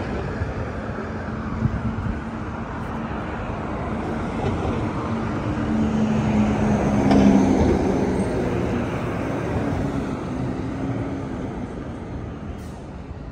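City street traffic: cars driving past on the road beside the sidewalk, one vehicle's engine hum growing louder to a peak about seven seconds in and then fading away.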